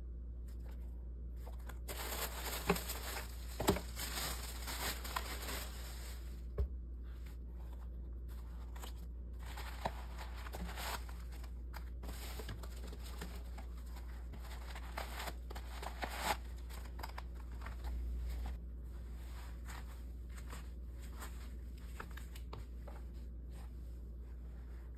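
Tissue paper crinkling and rustling in bursts as a shoe is unwrapped in its cardboard shoebox, with a few light knocks, over a steady low hum.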